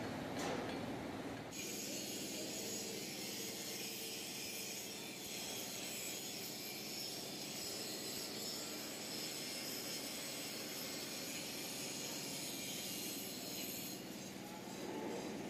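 Angle grinder grinding steel, a steady high hiss of the disc on the metal that sets in about a second and a half in and drops away near the end.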